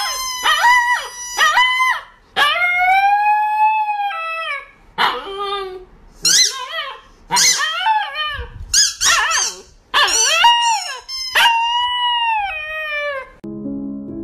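Husky puppy howling in a run of high, wavering calls, long drawn-out ones mixed with short yips. Soft background music takes over near the end.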